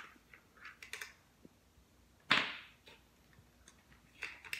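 Fishing lures being set down on a wooden surface: a handful of light taps and clicks, the loudest about two seconds in.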